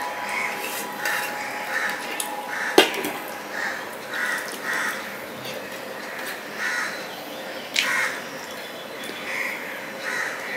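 Crows cawing over and over, short harsh calls coming in runs every half second or so. Underneath are the sounds of eating rice and fish curry by hand from a steel plate, with a sharp click about three seconds in and another near eight seconds.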